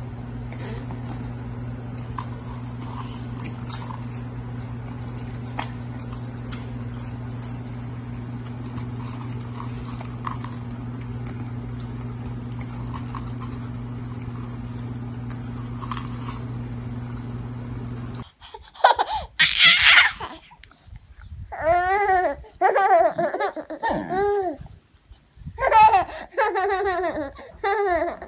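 A steady low hum with faint clicks, which stops abruptly about eighteen seconds in; then a baby laughs in several loud bursts of giggling.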